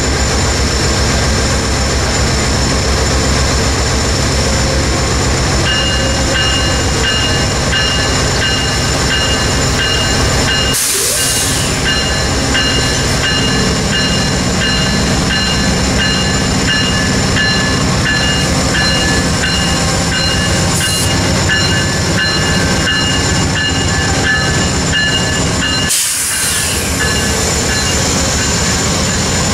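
GE P42DC diesel-electric locomotive running at the platform, its engine rumble growing heavier about halfway through as the train pulls out. A steady high tone joins about six seconds in, and there are two short hisses.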